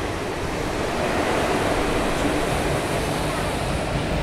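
Steady rushing noise of a local passenger train rolling slowly along a station platform, heard from the coach's doorway, with wind on the microphone.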